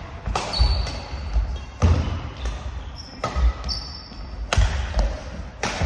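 Badminton rackets striking a shuttlecock in a doubles rally, about five sharp hits a little over a second apart, echoing in a large sports hall. Brief high squeaks of shoes on the wooden floor and low thuds of footsteps come between the hits.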